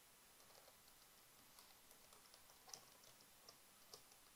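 Faint typing on a computer keyboard: a run of light, irregular keystroke clicks as a word is typed.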